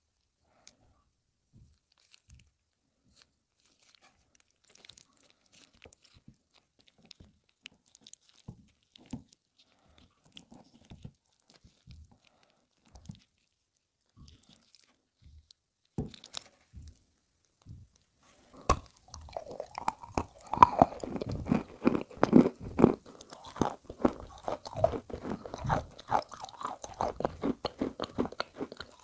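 Faint scattered sticky clicks from a gloved hand working a chalk block in wet clay paste. About two-thirds through, close, loud crunching and chewing begins as the paste-coated chalk is bitten and eaten.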